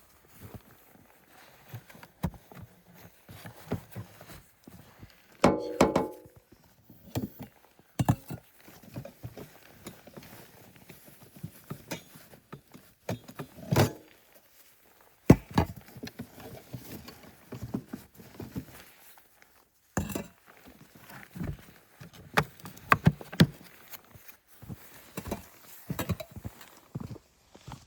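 Footsteps crunching through deep snow, uneven, with occasional dull knocks and thuds.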